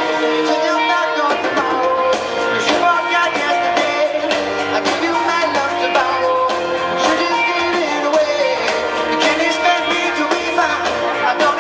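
Live pop-rock band playing loud amplified music through a concert sound system: guitar and a steady drum beat, with some singing.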